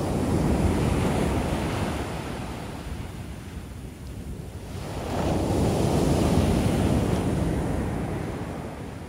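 Shore-break ocean waves: one wave crashing onto the beach at the start and a second about five seconds in, each swelling and then fading as the wash runs up the sand.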